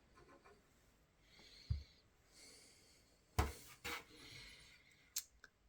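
Faint handling noises as the cables and parts of an old PC are checked: soft rubbing and rustling, a low thump, and a sharp knock about three and a half seconds in, followed by a couple of lighter clicks.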